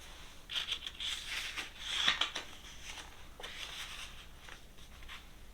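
Paper pages of a picture book being turned and handled, soft rustling in several short bursts.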